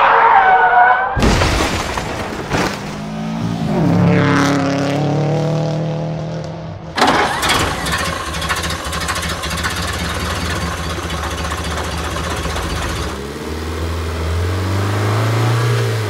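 A quick sequence of car recordings: tyres squealing for about a second, then engines starting, revving and running steadily, with a sudden new engine sound about seven seconds in that runs steadily for several seconds, including a vintage 1930s sedan's engine.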